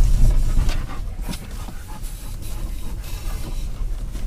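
Car cabin noise while driving slowly over a rough, potholed dirt road: a low rumble, heavier in the first second, with scattered knocks and rattles from the body and suspension over the bumps.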